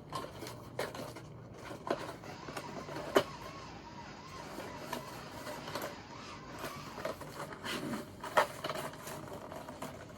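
Plastic toy packaging being handled and opened with scissors: scattered clicks and snips over light rustling.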